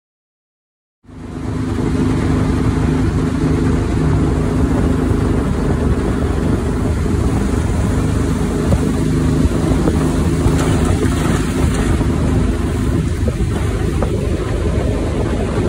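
23 hp Vanguard V-twin on a Backwater mud motor running steadily, pushing a jon boat under way, with wind and water noise over it. The sound cuts in abruptly about a second in.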